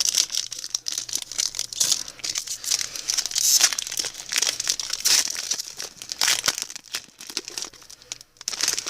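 Foil wrapper of a baseball card pack crinkling and tearing as it is handled and pulled open, a dense crackle with several louder rips.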